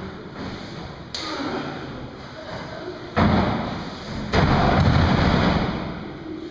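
Wrestlers' bodies slamming onto a wrestling ring's mat: three heavy thuds, one about a second in, one at about three seconds, and the loudest just after four seconds, when a wrestler is slammed down. That last one rings on for about a second and a half.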